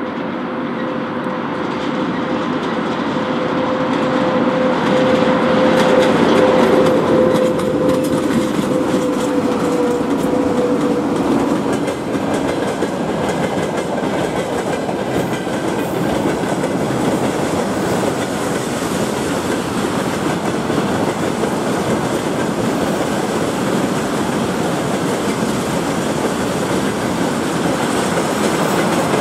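VL80K electric locomotive passing at the head of a freight train, with a steady hum that grows louder, peaks about six seconds in and fades out about ten seconds in. After it, a long line of loaded tank wagons rolls past on the rails with a continuous rolling rumble.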